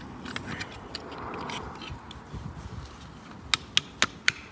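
Small handling sounds of a gate's photoelectric beam unit being taken apart: light scraping, then near the end a run of sharp clicks, about four a second, as the plastic housing and circuit board are worked loose.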